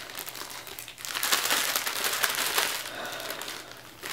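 Clear plastic packaging bag crinkling and rustling as a hair-extension bundle is pulled out of it by hand, loudest between about one and three seconds in.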